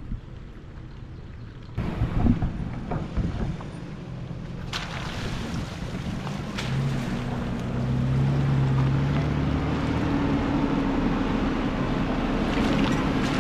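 Nissan Xterra driving a rough dirt trail: the engine runs with a steady drone that climbs a little in pitch and grows louder after a few seconds. There is a burst of knocks and rattles about two seconds in, over a constant rumble of tyres and wind.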